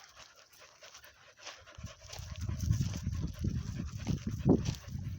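A dog panting rapidly close to the microphone, starting about two seconds in.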